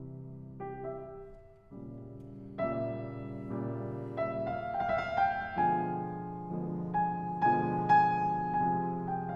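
Slow piano music: held chords and notes, thin at first and growing fuller and louder about two and a half seconds in.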